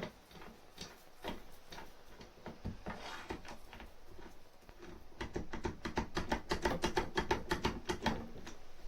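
Light knocks and taps of hand tools on a workbench, then from about five seconds in a quick, even run of clicks, about eight a second, lasting some three seconds, as the vise stand is fastened down to the bench.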